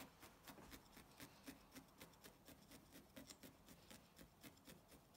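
Faint, quick stabbing of a felting needle through yarn into a foam pad, felting a yarn ear: soft irregular taps, several a second.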